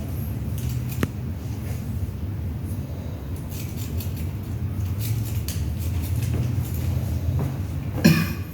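Barber's scissors snipping hair in short runs of quick clicks over a steady low hum. A brief vocal sound comes just before the end.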